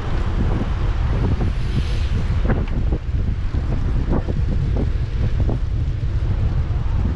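Wind buffeting an action camera's microphone while cycling: a steady low rumble, with a few short knocks over it.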